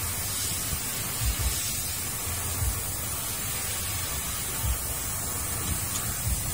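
Steady hiss with irregular low thumps, and no clear sound from the hand-turned handbrake adjuster.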